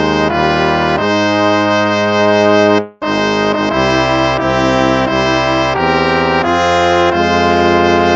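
Instrumental hymn music: full held chords moving in steady steps, with a short break between phrases about three seconds in.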